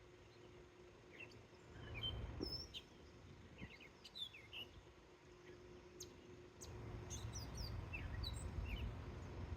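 Birds chirping, with many short high calls scattered throughout, over a faint low rumble that swells about two seconds in and again near the end.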